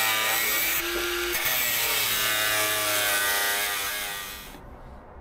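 Angle grinder cutting into a seized steel bolt head, its whine wavering in pitch as the disc bites, then stopping sharply about four and a half seconds in.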